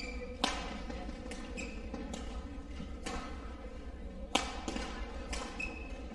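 Badminton rally: a string of sharp racket-on-shuttlecock hits at irregular spacing, mixed with footfalls on the court, over a steady low hall hum.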